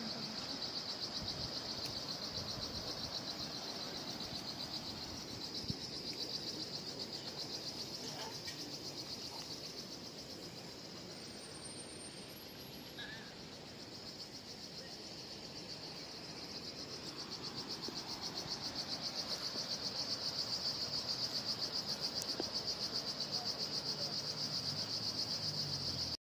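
A chorus of insects shrilling in a steady, high, fast-pulsing drone, over a faint rushing noise. It dips in the middle and swells louder again in the last third.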